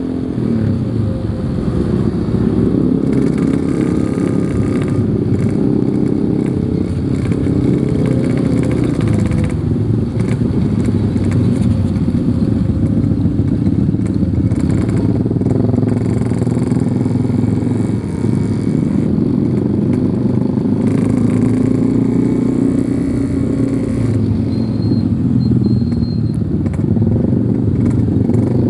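Yamaha RX-King's 135 cc two-stroke single-cylinder engine running steadily under way, its pitch shifting a little with the throttle.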